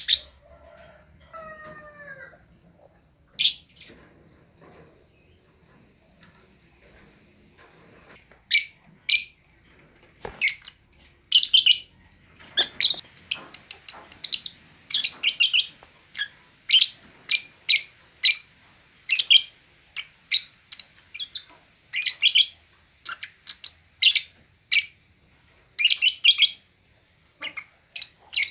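Fischer's lovebirds calling with shrill, high chirps in short bursts. The calls are scattered for the first several seconds, then come in quick, close runs from about eight seconds in.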